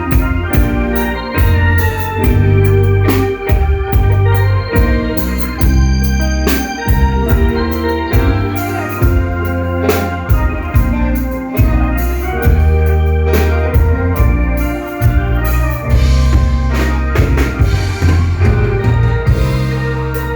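Live instrumental Thai band music played loudly from a small parade sound truck: an electronic keyboard melody in an organ tone over heavy bass and a steady drum beat.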